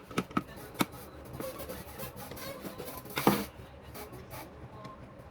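Small handling noises: a few sharp clicks in the first second, then a louder clatter about three seconds in, over a faint steady background.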